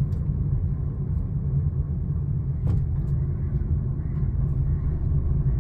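Steady low rumble of a small Maruti Suzuki car's engine and tyres, heard from inside the cabin as it drives slowly.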